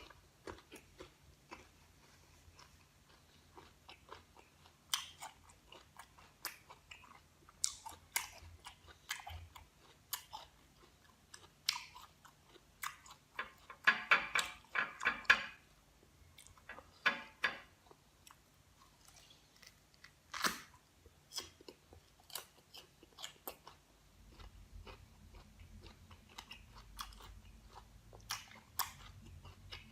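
Crisp green guava being bitten and chewed: scattered crunches and chewing clicks, with a dense run of loud crunches around the middle.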